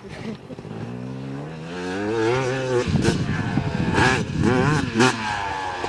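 Motocross dirt bike engine revving and accelerating, its pitch climbing steadily for about three seconds, then rising and falling repeatedly as the throttle is worked.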